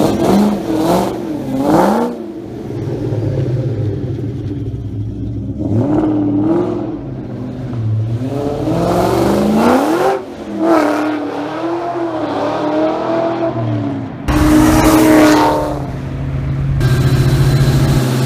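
Ford Mustang SVT Cobra 'Terminator' supercharged V8 revving up and down in repeated blips. About 14 seconds in it turns suddenly louder and harsher at high revs, then settles into a steady heavy drone under load.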